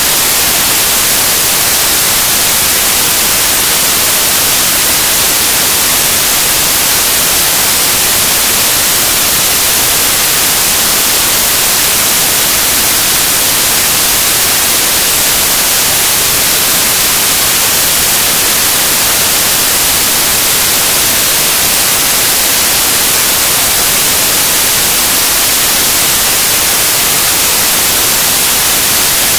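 Loud, steady static hiss like white noise, strongest in the high end and unchanging throughout, with no other sound standing out of it.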